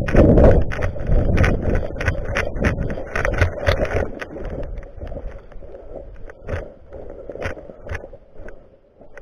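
Irregular sharp clicks and scraping over a low rumble, busiest in the first four seconds and thinning out and quieter after.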